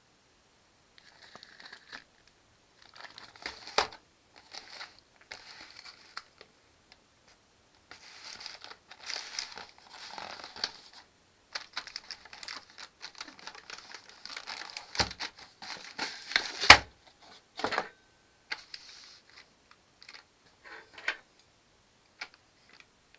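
Cardboard sleeve and plastic film of a ready-meal tray crinkling and rustling in irregular bursts as the sleeve is worked off, with a few sharp knocks, the loudest about 17 seconds in. Near the end come a few light ticks as a fork pricks the film lid.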